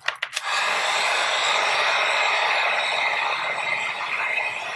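Handheld hot-air blower starting up and blowing steadily, heating a phone's back panel to soften its adhesive. It comes on about half a second in, after a couple of clicks.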